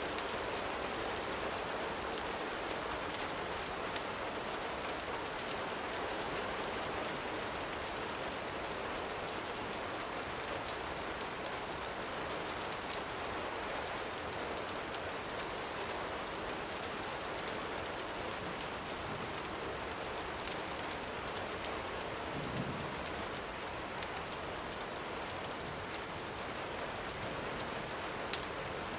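Steady gentle rain falling, an even hiss with scattered faint sharp ticks.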